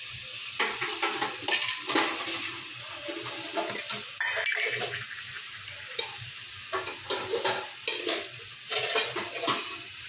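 Cauliflower, potatoes and freshly added tomatoes frying in oil in a metal pan: a steady sizzle, with a steel spoon scraping and clinking against the pan now and then.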